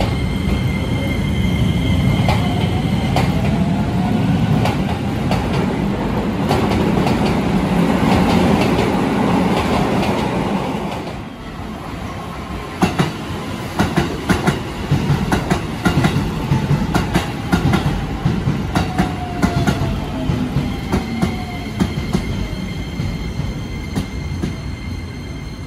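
Keisei 3000-series electric train running along the platform, with a loud wheel and motor rumble, a faint motor whine and a thin wheel squeal. About 11 s in, the sound cuts to a Shin-Keisei commuter train coming in over rail joints. It gives a run of sharp clicks, a motor whine that falls in pitch, and thin wheel squeal near the end.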